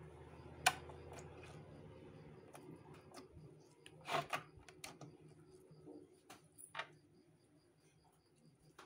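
Slime being squeezed and pressed by hand, giving faint scattered clicks and pops. A sharp one comes under a second in, and a small cluster about four seconds in.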